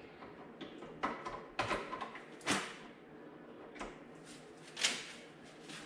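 Plastic clicks and scraping as a tow-mirror marker light is worked into its mirror housing, with a few sharper knocks, the loudest about two and a half and five seconds in.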